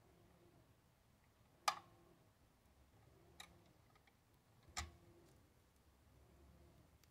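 Faint mechanical clicks from a Dual 1216 automatic turntable cycling into play: three sharp clicks, the last with a soft low thud, typical of the tonearm mechanism working and the stylus setting down on the record.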